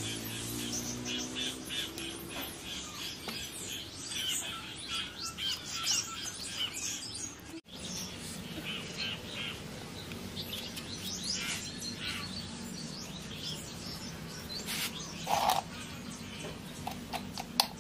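Small birds chirping repeatedly in short high calls, over a faint steady low hum.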